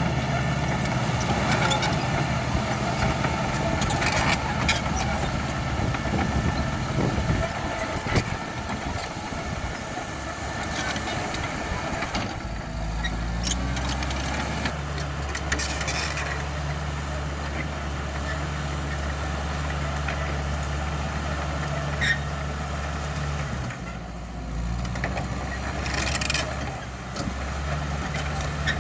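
Caterpillar D5K XL bulldozer's diesel engine running as it works, its note shifting about twelve seconds in and then holding steady, with a brief dip about ten seconds later. Sharp knocks and snaps come now and then.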